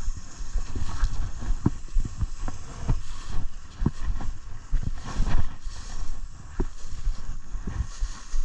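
Footsteps and brush rustling in irregular crunches as people and a dog move through woodland undergrowth, over a low rumble of wind on the microphone.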